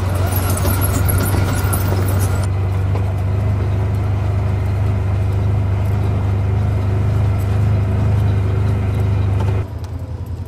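Side-by-side utility vehicle (UTV) engine running steadily as it drives, with a crackle of tires over rock for the first couple of seconds. The engine sound drops away near the end as it is shut off.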